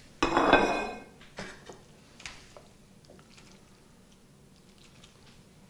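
A short clatter of kitchenware with a brief metallic ring, then a few faint clicks and soft squelches as creamy fettuccine is lifted out of a stainless steel skillet with metal tongs.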